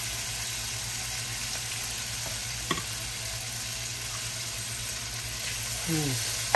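Shrimp with green pepper and onion sizzling steadily in a hot nonstick wok as they are stirred with a spatula, with one light knock a little under three seconds in.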